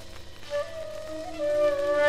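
Instrumental band music: a melody of held notes that enters about half a second in, with the music growing louder through the second half.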